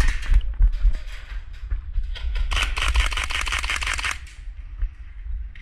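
Airsoft guns firing: scattered sharp shots, then a rapid full-auto burst starting about two and a half seconds in and lasting about a second and a half, over a steady low rumble.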